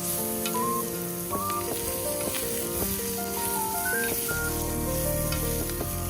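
Background music with a stepping melody, a bass line coming in about two-thirds of the way through, over the steady sizzle of food frying in a pan.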